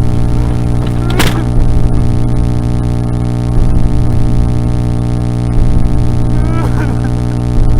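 Loud, distorted droning music: many held tones stacked over a strong low hum, with a short crackle about a second in.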